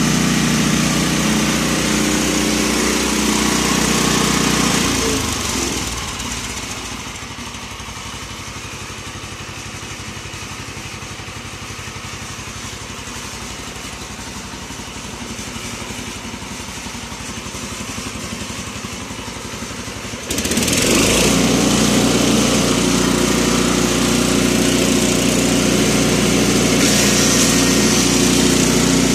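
Small petrol engine running a belt-driven disk mill. It eases off to a quieter, lower run about five seconds in, then comes back up suddenly to full, loud running about two-thirds of the way through.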